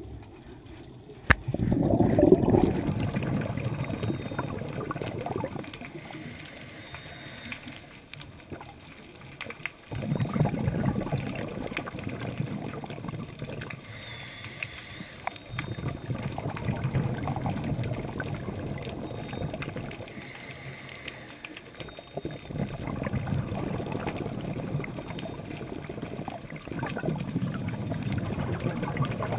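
Scuba regulator exhaust bubbling, heard underwater: long gurgling rushes of exhaled bubbles about every five to eight seconds, five times, with quieter stretches between. A sharp click comes just before the first.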